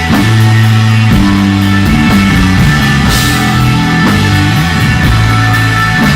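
A live psychedelic desert rock band playing: electric guitar over held bass notes that change every second or so, with a cymbal crash about three seconds in.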